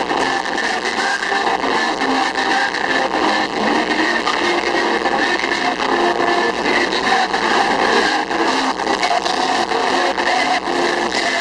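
A huge crowd of worshippers shouting praise all at once: a loud, dense mass of many voices with no single word standing out.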